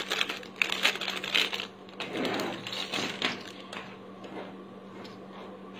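Clear plastic packet crinkling as it is handled and opened, with small metal rings clicking and clinking out onto a cloth-covered table. The clicks are dense for the first second or so, then grow sparser and fade out.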